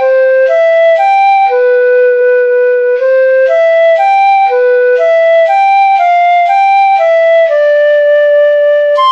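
Music: a melody on a flute-like wind instrument, clean steady notes of about half a second each stepping up and down, with a longer, lower note near the end.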